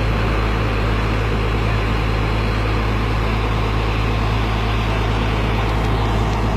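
Ingersoll-Rand single-drum padfoot roller's diesel engine running steadily, a loud even drone with a strong low hum and no change in speed.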